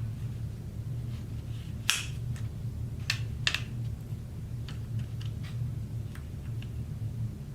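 Sharp clicks and small knocks from a quick release roof-rack mount being handled and its latch worked, loudest about two and three and a half seconds in, then a few lighter clicks. A steady low hum sits underneath.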